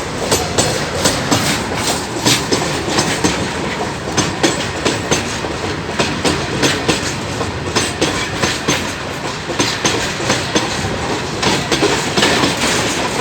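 Goods train wagons rolling past, their wheels clacking over the rail joints in a rapid, uneven rhythm of several clacks a second.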